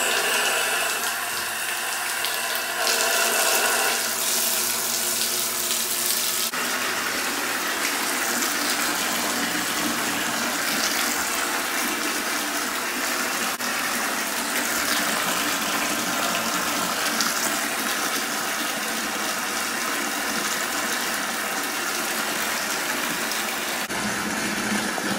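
Bathtub faucet running full, pouring a steady stream into a partly filled tub of water.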